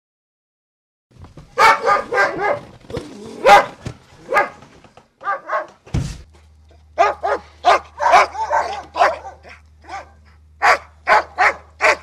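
A dog barking repeatedly in short, irregular runs of barks, starting about a second in.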